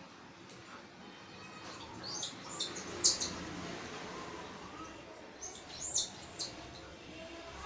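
Baby cockatiel chicks giving short, high-pitched begging chirps while being hand-fed. The calls come in small clusters, loudest about three seconds in and again near six seconds.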